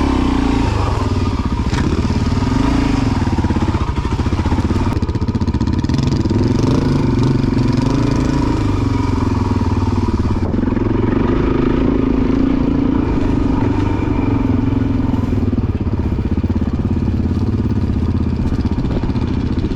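Single-cylinder four-stroke dirt bike engine running under way, its revs rising and falling again and again as the throttle is worked.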